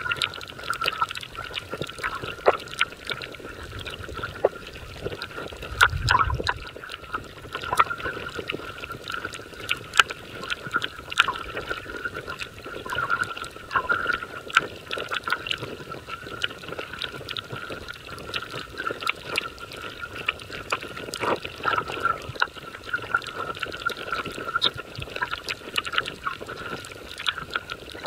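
Underwater sound on a coral reef: a continuous dense crackling of small clicks over a steady high hum, with a brief low rumble about six seconds in.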